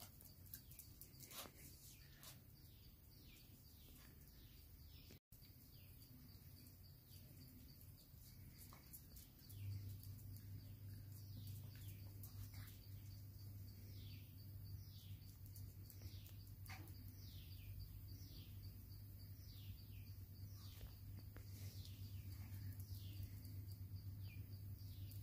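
Faint, repeated short chirps that fall in pitch, roughly one a second: a bird calling. A low steady hum comes in about ten seconds in.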